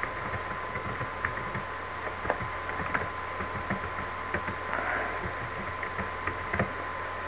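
Computer keyboard keys clicking irregularly as a short note is typed, over a steady background hiss with a low hum and a thin constant tone.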